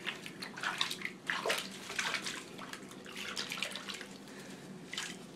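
Bathwater splashing and sloshing in a foamy tub as ferrets are washed by hand, in irregular splashes.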